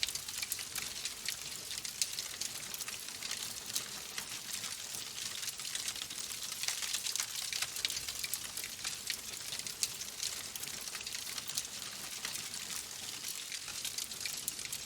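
Logs burning in a fireplace, crackling steadily with many small irregular pops and snaps over a soft hiss.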